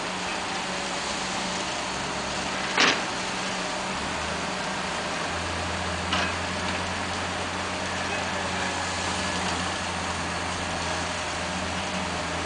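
A heavy construction machine's engine running steadily under a wash of roadside noise, with a deeper hum joining about five seconds in. Two sharp knocks cut through it, a loud one about three seconds in and a smaller one about six seconds in.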